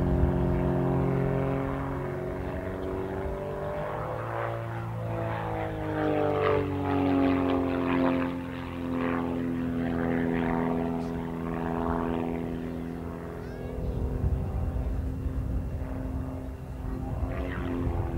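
Reynolds Wildcat Special aerobatic biplane's piston engine and propeller droning overhead, the engine note sliding down and back up several times as it manoeuvres.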